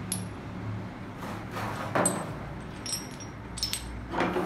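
Small metal hand tools being handled: soft knocks and scrapes, then several short, high, ringing metal clinks about three seconds in, as pieces tap against each other.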